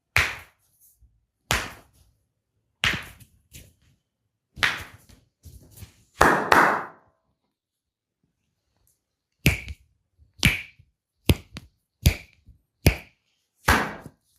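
Open-handed slaps of a percussive massage on the body, a dozen or so separate strikes. They are spaced out at first, then after a pause come quicker and evenly near the end.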